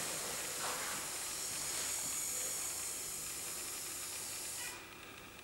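A steady high hiss that cuts off suddenly near the end, leaving faint ticking.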